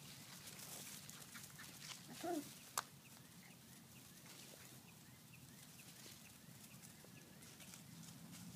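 Faint outdoor ambience broken by one short yip from a three-week-old puppy about two seconds in, followed by a single sharp click.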